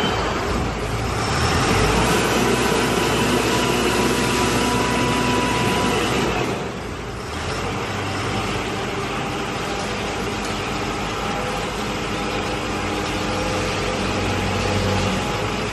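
The diesel engine of a 3.5 m³ self-loading concrete mixer running steadily. It drops a little in level about six and a half seconds in, then carries on.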